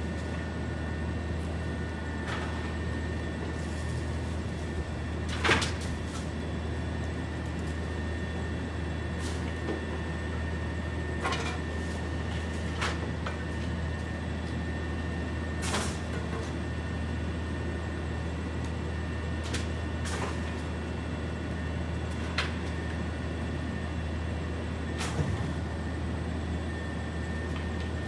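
Rear-loader garbage truck running steadily with a constant low hum and a steady high whine, broken by scattered metallic clanks and knocks, the loudest about five seconds in.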